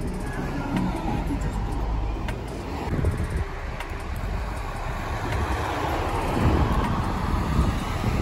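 Road traffic on a street, a steady rumble of passing cars that swells as a vehicle goes by in the second half.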